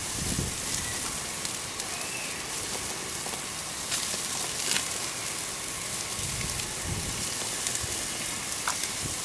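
Raw ground-beef burger patties sizzling on a hot barbecue grill over open flames: a steady hiss with a few sharp crackles and pops.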